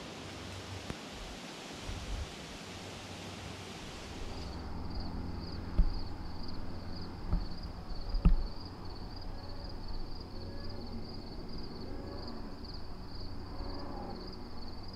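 Outdoor ambience: an even hiss, then after a cut about four and a half seconds in, insects chirping high and steadily at about two chirps a second. A few dull thumps and a sharp click come around the middle, and short calls from distant birds come in the second half.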